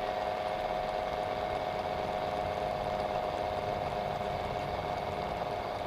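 Three-phase induction motor running on single-phase power through a 13 µF capacitor: a steady hum with a constant mid-pitched whine. It is running slow and overheating on the mismatched supply.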